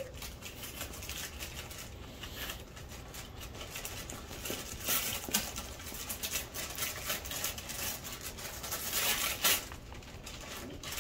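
Wrapping paper rustling and crinkling as a present is handled and unwrapped, in uneven spells of light crackles that are loudest about five seconds in and again near nine seconds.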